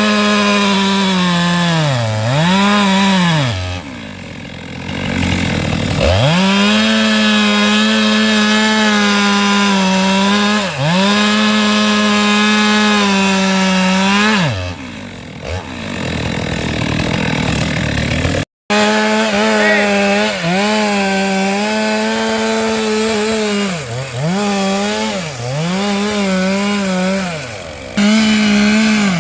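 Stihl MS 462 two-stroke chainsaw cutting into a sengon trunk, held at high revs with its pitch repeatedly dropping and climbing back as the throttle eases off and opens again, easing to lower revs twice. The sound breaks off for an instant just past halfway.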